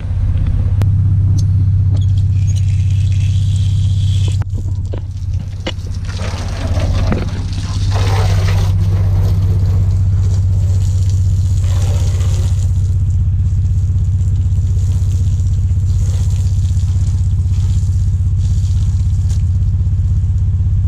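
Water sprayed on and off from a hose nozzle onto a car's bodywork, over a steady low motor drone.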